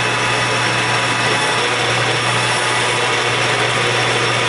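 Lathe running steadily as the cutting tool turns down a neck-turning mandrel, an even machine hum with a steady hiss over it.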